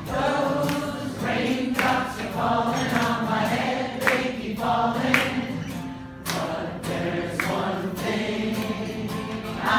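Live solo music: a steel-string acoustic guitar strummed with sharp accents, and a man singing over it.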